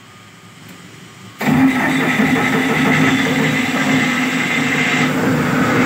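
Cummins 50 kVA generator set's diesel engine started from its controller: quiet for about a second and a half, then the engine comes to life abruptly and settles into a steady run.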